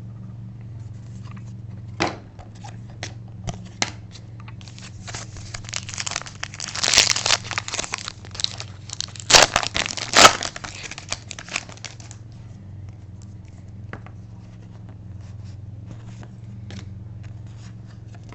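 Crinkling and rustling of plastic card packaging being handled while hockey trading cards are sorted, with scattered clicks. The crinkling swells from about five seconds in to about twelve, peaks in two sharp crackles near the middle, then dies back to faint handling over a steady low hum.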